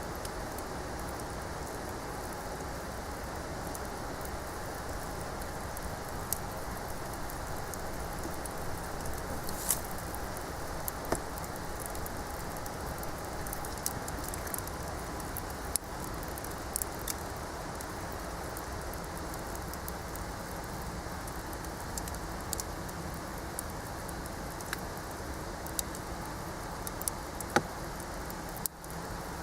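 Wood bonfire burning, a steady rushing hiss with scattered sharp crackles and pops from the burning wood, one louder pop near the end.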